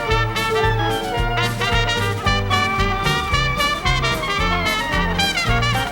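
Upbeat jazz band music with trumpet and other brass over a steady swing beat.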